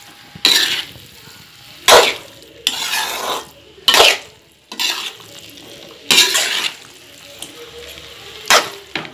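Spatula scraping and knocking against a metal kadai as penne pasta with vegetables and sauce is stirred and tossed. There are about eight sharp, irregular scrapes roughly a second apart, with a faint sizzle between them.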